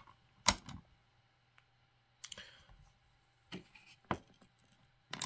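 A few separate sharp clicks and clinks of small metal hardware being handled: battery cable ring lugs, washers and a nut on an electrical-box terminal stud. The loudest click comes about half a second in.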